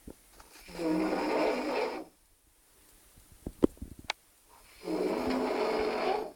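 A man passed out drunk, snoring: two long snores, each about a second and a half, roughly four seconds apart, with a few short clicks in the gap between them.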